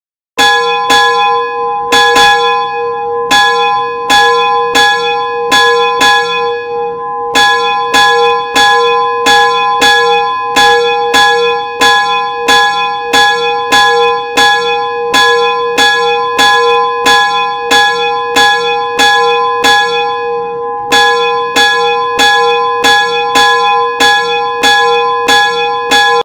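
A set of four bells struck one after another in a repeating sequence, about two strikes a second, each bell ringing on under the next. The ringing starts suddenly, has short breaks about seven seconds and twenty seconds in, and stops abruptly.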